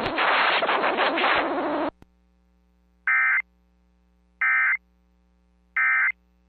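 A voice finishes reading a severe thunderstorm warning, then the Emergency Alert System end-of-message signal sounds: three short, identical digital data bursts about a second apart, marking the end of the alert.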